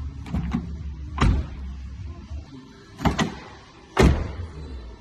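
Car doors, first a Honda's and then a Nissan's, opened by the exterior handle and shut. It comes as two pairs: a light double click of the latch, then about a second later a heavier door thud. The last thud is the loudest.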